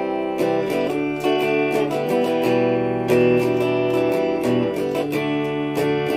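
Stratocaster-style electric guitar played clean, picking chords and single notes that ring on, with several pick attacks a second.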